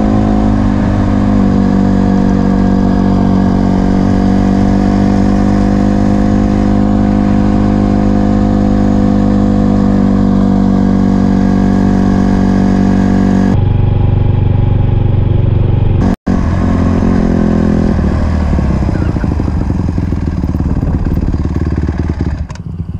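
Honda CRF150R dirt bike's single-cylinder four-stroke engine running under way at a steady, even pitch, heard close up from the bike. About 14 seconds in its tone changes abruptly, there is a split-second gap about 16 seconds in, and after that the engine note becomes less even and slows, growing quieter near the end.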